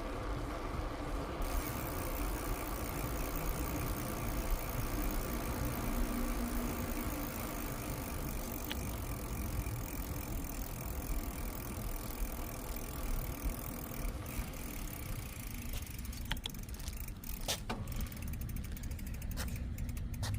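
A bicycle being ridden: steady rumble of tyres and wind on the microphone, with a few sharp clicks near the end.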